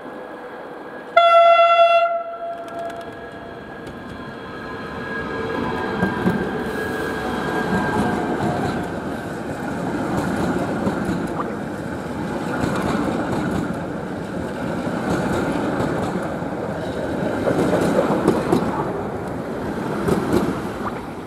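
Skoda EJ675 double-deck electric multiple unit passing: one short horn blast about a second in, then the rumble and clatter of its wheels over the rail joints, building as the cars run by, with a faint motor whine that slowly falls in pitch.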